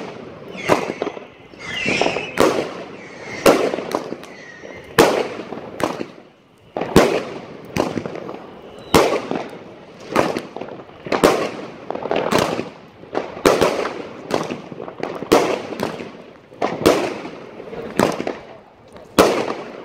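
Aerial fireworks: a steady run of shells launching and bursting, about one sharp bang a second, each trailing an echo, with a short lull about six seconds in.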